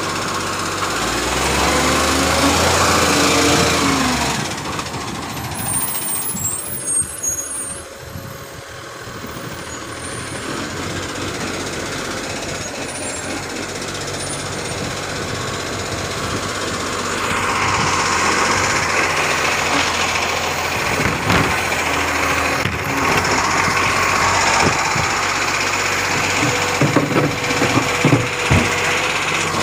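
Side-loading garbage truck's engine running as it moves along the kerb. About halfway the engine speeds up with a higher whine as the automated arm works, and there are several clunks near the end as the arm grips a wheelie bin.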